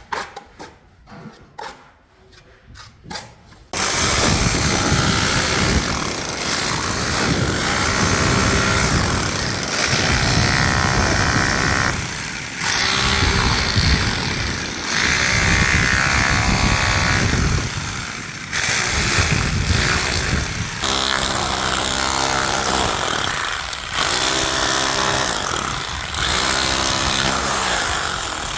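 A power tool running loud in long stretches of several seconds with brief pauses between them, starting about four seconds in after a few quieter clicks. Near the end it takes on a steadier motor pitch.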